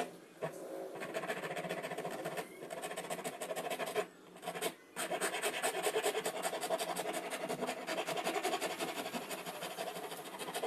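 A flat steel hand file scraping back and forth over a small wooden dowel in rapid, even strokes, shaping the wood. It pauses briefly about four seconds in, then resumes.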